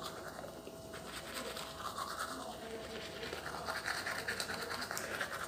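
Manual toothbrush scrubbing teeth in quick, rhythmic back-and-forth strokes, a wet brushing scratch.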